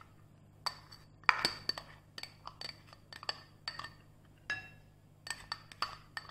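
Glass bowls clinking as a plastic spatula scrapes and taps chopped small onions out of a small cut-glass bowl into a larger glass mixing bowl: about fifteen irregular sharp clinks, many with a brief high glassy ring.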